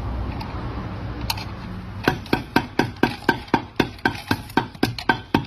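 A low, steady hum, then from about two seconds in an even run of sharp knocks, about four a second, like a woodblock beat.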